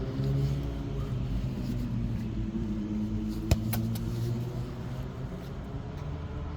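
A motor running steadily with a low hum whose pitch wavers slowly, and two sharp clicks in quick succession about three and a half seconds in.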